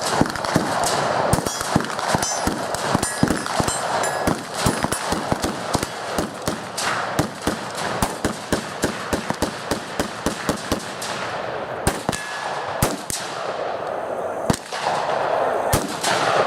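Gunfire from several firearms on a shooting range: many sharp shots, often several a second and overlapping, thinning out towards the end, with voices murmuring behind.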